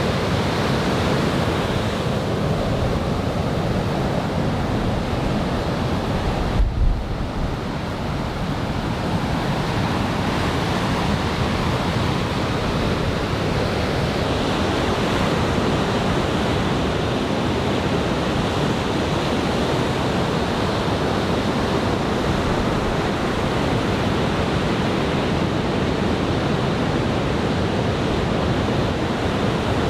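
Heavy surf from a typhoon swell: a steady wash of breaking waves. About seven seconds in there is a brief low bump of wind on the microphone.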